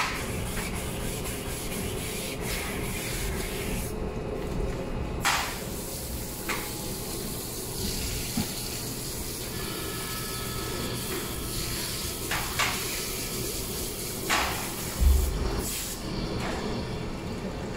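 Scrubbing a wet stainless flat-top griddle with a grill brick, then a spray hose rinsing water over it, with a few scrapes and a heavy thump about fifteen seconds in.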